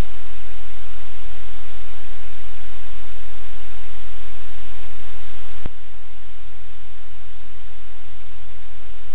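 Loud, steady static hiss over a low electrical hum on the audio feed. A single click comes about five and a half seconds in, after which the hiss is slightly quieter.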